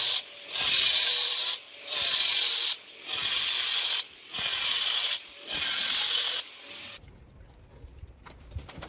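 Makita angle grinder with its disc cutting short slots into a cement screed floor across a crack, a series of loud grinding cuts about one a second, easing off between them as the disc is lifted. It stops abruptly near the end, giving way to faint clicks of metal screed staples being handled.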